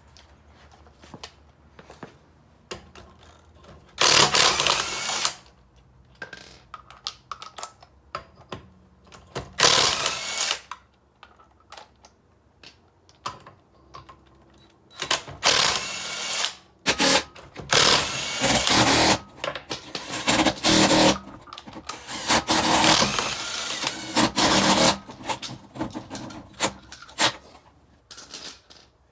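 DeWalt cordless impact wrench running on wheel lug nuts in about six short bursts of a second or two each, with quieter gaps of small clicks and handling between them.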